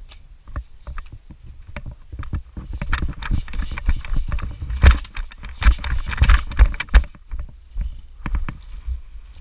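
Handling and movement noise close to the microphone: irregular knocks, low thumps and rustling as a player moves with gear, busiest and loudest in the middle.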